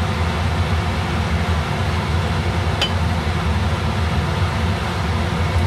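Steady whir of a kitchen fan running with a constant low hum, and a single light click about three seconds in.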